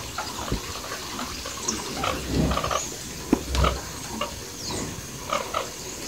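Zebu cattle in a dirt corral making short, low grunting sounds, twice in the middle, among scattered small knocks and faint bird chirps.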